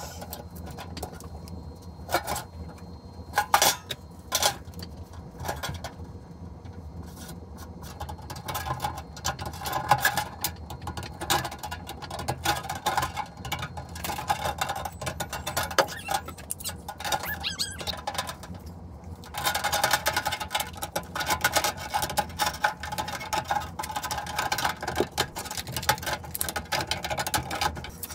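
Tin snips cutting a galvanized sheet-steel ductwork end cap: a dense run of crunching, crackling snips of thin metal, loudest over the last several seconds. A few sharp clicks come before the cutting starts.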